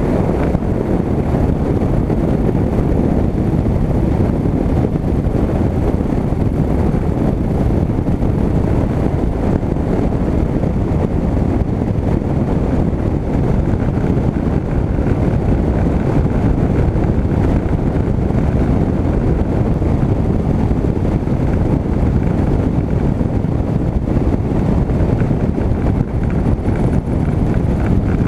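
Steady rush of wind buffeting a wing-mounted camera on a high-wing single-engine light aircraft rolling along the runway, mixed with the aircraft's engine and propeller noise.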